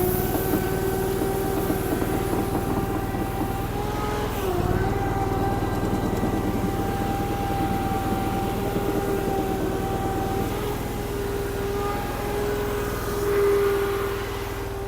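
Derette DRT450 mini skid steer running under heavy load while lifting about 1,000 pounds, a steady engine hum with a high whine over it. The pitch dips briefly about four and a half seconds in, and the sound swells louder near the end.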